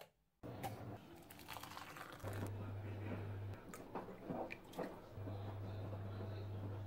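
Faint clicks, taps and light handling sounds of tea being made with an electric kettle and a ceramic mug, over a low steady hum that comes and goes in two stretches.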